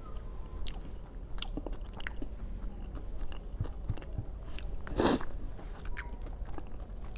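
A person chewing and biting food close to the microphone, with small wet clicks and one louder crunchy bite about five seconds in.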